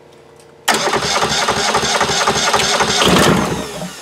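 Kubota Z482 two-cylinder diesel cranking over loudly on its electric starter, starting suddenly a little under a second in and pulsing evenly for about three seconds before the starter lets go and winds down with a falling whine. It is being turned over with the bleed valve open to purge air still left in the fuel system.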